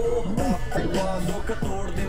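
Background music with a melodic vocal line over a steady low bass.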